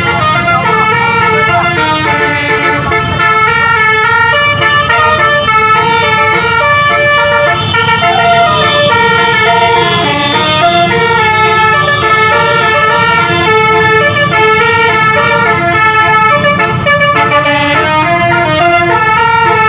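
A bus's telolet basuri musical air horn playing a long melody of stepped notes, the tones jumping up and down in pitch without a break, over a low engine and road rumble.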